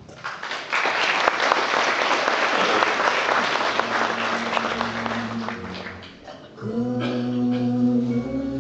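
Audience applauding, the clapping dying away about six seconds in; then music with long held notes begins.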